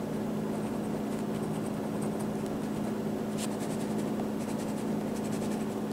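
Ballpoint pen scratching across paper as lines of a drawing are traced over thickly, over a steady low hum.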